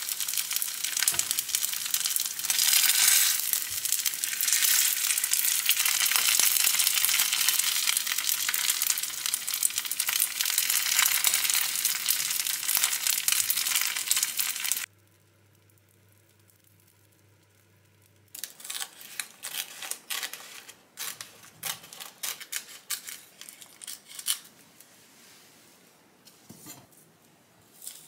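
Rice balls sizzling in a hot frying pan, a steady loud sizzle that starts abruptly and cuts off about halfway through. After a short quiet gap, there are irregular crisp crackles of dried nori seaweed sheets being handled and pressed around the rice balls.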